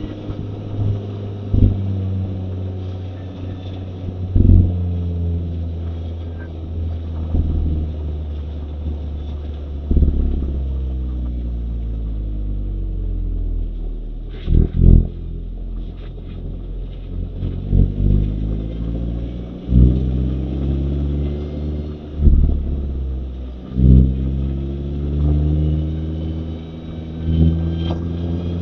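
Mazda MX-5 (ND) 1.5-litre four-cylinder engine driven through a manual gearbox. The engine note repeatedly climbs and drops with gear changes, with one long fall in revs near the middle and short knocks at several points.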